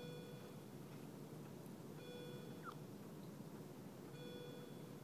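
Three short electronic beeps about two seconds apart, faint, over a steady low background hum, with one faint short squeak a little past halfway.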